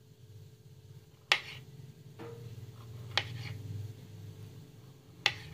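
Knife slicing a peeled kiwi into rounds on a ceramic plate, the blade clicking sharply against the plate three times, about two seconds apart. A low steady hum runs underneath.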